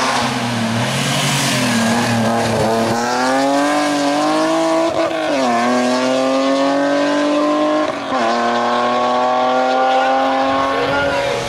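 BMW E30 rally car's engine revving hard under acceleration. The pitch climbs and drops sharply at upshifts, once about halfway through and again about two-thirds of the way in.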